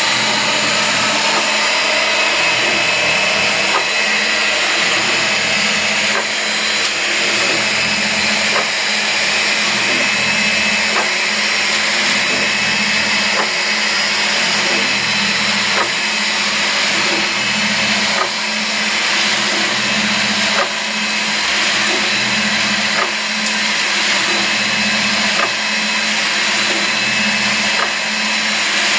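Electric pipe threader motor running steadily with a high whine, turning an air compressor tank that has gravel, TSP and water tumbling inside. A short clunk repeats about every two and a half seconds.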